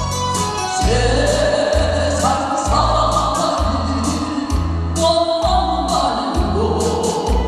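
A woman singing a Korean trot song into a microphone over a backing track with a steady bass-and-drum beat and cymbal strokes.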